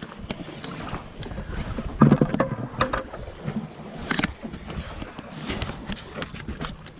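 Small waves lapping and splashing against the rocks of a jetty, with scattered clicks and knocks from handling a fishing rod and spinning reel. A louder knock comes about two seconds in and another about four seconds in.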